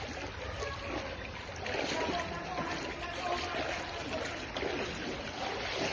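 Fast-flowing floodwater rushing steadily, with faint voices in the background.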